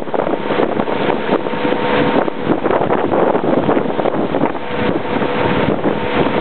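Boat motor running steadily under heavy wind buffeting on the microphone, with water rushing and splashing past the moving hull.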